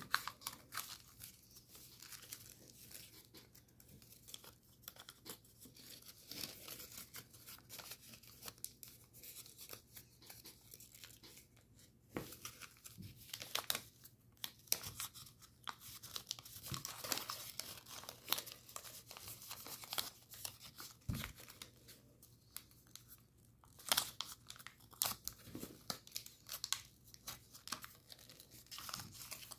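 A sheet of thin paper being folded and creased by hand: irregular crinkling and rustling with sharp crackles as the folds are tucked and pressed, in busier bursts after about 13 seconds and again near the end.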